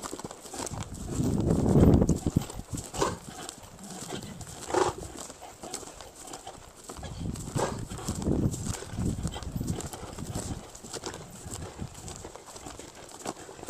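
A horse's hooves clip-clopping on the ground as it moves, irregular in step, with a louder rush of sound about two seconds in.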